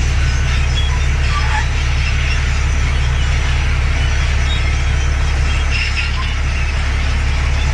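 Large crawler bulldozer's diesel engine running steadily under work, a constant low drone with a rough, noisy haze of mechanical sound above it.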